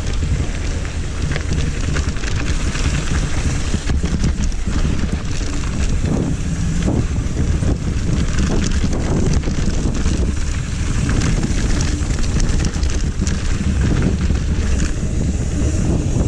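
Wind rushing over the rider's camera microphone as a mountain bike rolls fast down a dirt trail, with a steady low rumble of tyres on dirt and gravel and frequent clicks and rattles from the bike.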